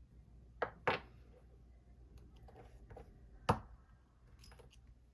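Small metal clicks and clinks as the reel's drag washers are pushed out of the spool and set down: two sharp clicks close together just under a second in, a louder one about three and a half seconds in, then a few faint ticks. The washers are being freed from a drag stack locked up by corrosion.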